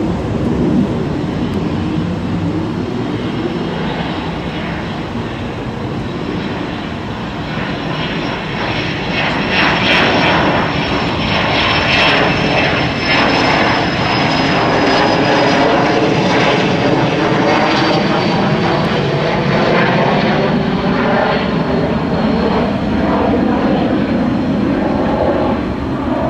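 Small twin-engine business jet taking off, its rear-mounted jet engines at takeoff power through the roll and lift-off. The noise grows louder about a third of the way in, with a high turbine whine that slowly falls in pitch.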